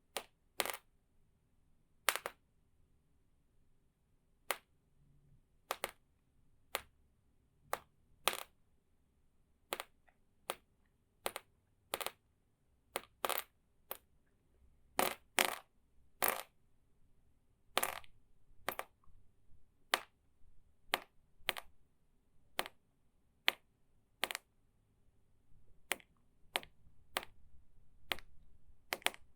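Water drops falling one at a time, each a short, crisp drip, at an uneven pace of roughly one a second, some coming in quick pairs.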